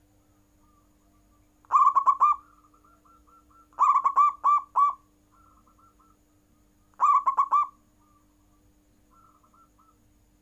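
Zebra dove (perkutut) cooing: three loud runs of four or five quick, clipped coos, with fainter runs of coos in between. A faint steady hum lies underneath.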